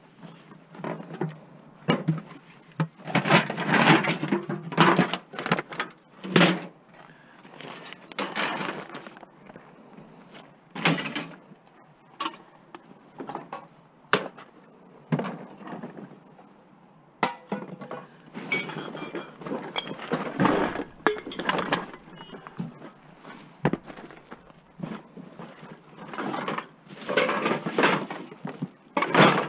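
Irregular clattering, knocks and rattles of scrap being handled and taken apart, in uneven bursts with short pauses between.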